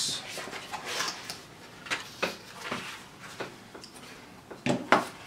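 Small cardboard box being handled and opened by hand, its flap lifted over the kit parts inside: light scrapes and taps of card, with two sharper knocks near the end.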